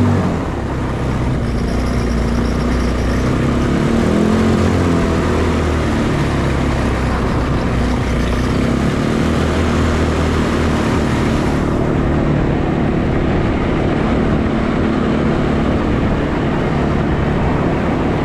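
Four-wheeler (ATV) engine running at low riding speed, with its pitch rising and falling once about four seconds in as the throttle is worked.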